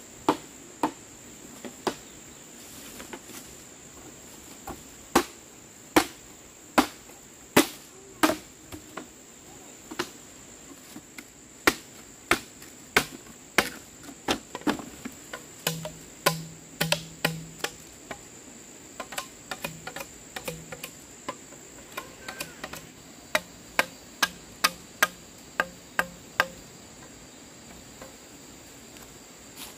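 Repeated sharp strikes at an uneven pace, about one or two a second, over a steady high-pitched chirring of crickets; the strikes stop a few seconds before the end.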